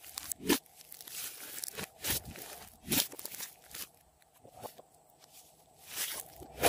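Thick clay-mixed slime being kneaded, folded and stretched by hand: soft squishing and crackling broken by about seven sharp pops as the slime is pressed and pulled.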